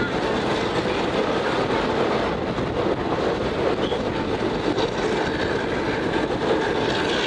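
A State Railway of Thailand local passenger train running along the track, heard from aboard the coach: a steady, even rumble of wheels and carriage.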